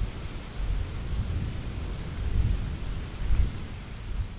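Thunder rumbling low, swelling a few times, over the steady hiss of rain.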